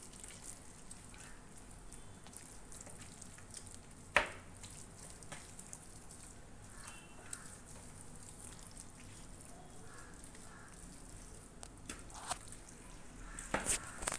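Faint wet squishing of hands rubbing masala paste over a whole raw chicken, with one sharp click about four seconds in and a few more clicks near the end.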